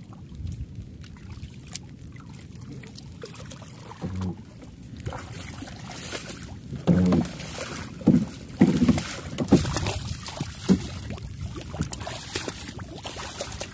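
Small wooden outrigger banca being pushed by hand through shallow water, with water sloshing and hissing around the hull. Several loud sudden sounds come between about seven and eleven seconds in.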